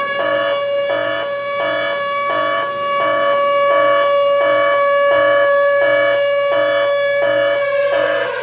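Siren wail held on one steady pitch, with a pulsing tone about twice a second beneath it. It begins to wind down, falling in pitch, near the end.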